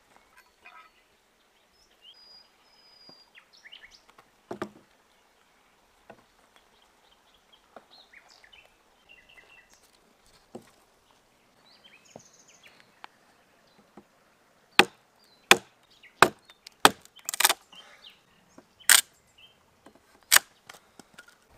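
Axe chopping a dry, dead tree branch: about eight sharp blows of the blade into the wood in the last third, spaced roughly a second apart. Before them come a quieter stretch and one dull thump a few seconds in.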